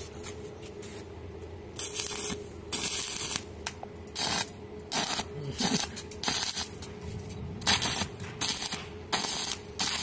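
TIG welding arc on a stainless steel railing joint, struck in short bursts of hissing noise about once a second as the filler rod is fed in. A steady hum runs underneath.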